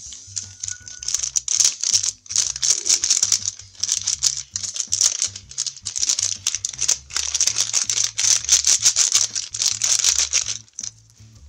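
Powdered strawberry drink mix being shaken out of its sachet into a plastic blender jar: a dry, rattling hiss in irregular bursts that stops about a second before the end. Electronic background music with a steady beat plays underneath.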